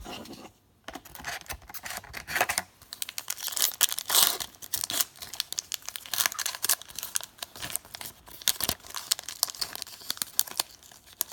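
Trading card pack wrapper being torn open and crinkled by hand, an irregular crackling and tearing with sharp crinkly clicks, loudest about four seconds in.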